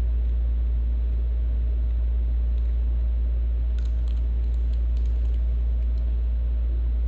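Steady low hum, unchanging in level, with a few faint clicks and taps about four to five seconds in as a small glass dropper bottle is handled.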